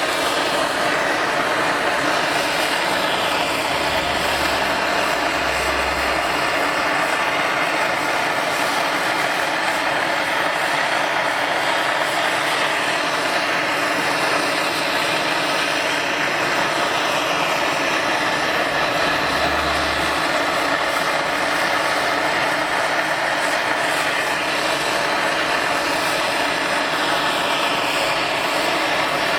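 Small hand-held MAPP-gas torch burning with a steady hiss as its flame heats a brake disc.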